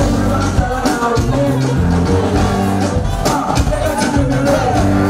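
Live concert music over a loud PA system: a man singing into a microphone over music with a deep bass line and a steady beat.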